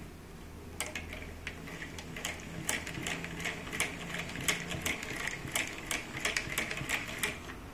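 Hand-cranked electric generator being turned: a rapid, uneven clicking of its mechanism over a low hum, starting about a second in, as it generates a small current.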